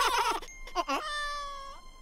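High-pitched cartoon giggling from a white bunny and a little yellow chick, stopping about half a second in. A single long, steady, high cry follows about a second in and bends up as it ends.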